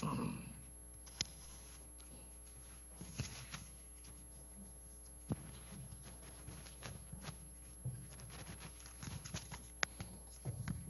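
Handling noise from a clip-on lapel microphone being fastened to a jacket collar: scattered rustling of cloth against the mic, with a few sharp clicks several seconds apart.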